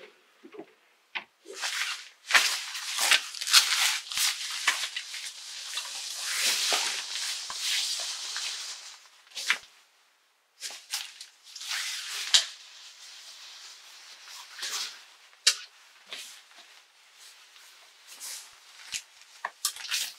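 Clothes rustling as hanging garments are pushed along a closet rail and handled, with sharp clicks of hangers knocking together. The rustling is strongest in the first half, then quieter with scattered clicks.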